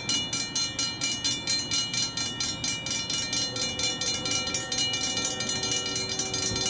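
Railroad grade-crossing warning bells ringing with rapid, even dings, about three to four a second, sounding continuously while the crossing signals are activated for an approaching train.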